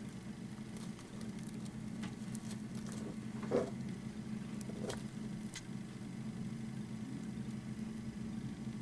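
A few light scratches and rustles in dry hay and wood-chip bedding as a Central Asian tortoise shifts its front leg. The loudest is a short scrape about three and a half seconds in, and all of it sits over a steady low hum.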